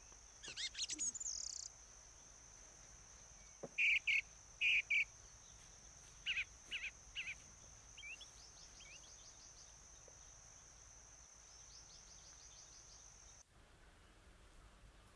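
Countryside ambience: birds chirping in short groups of calls over a steady high insect drone, which cuts off suddenly near the end.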